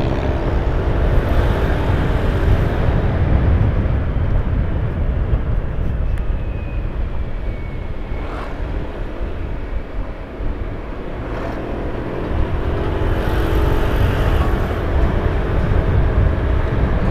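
Vehicle travelling along a road: steady engine and road noise, dipping briefly about ten seconds in.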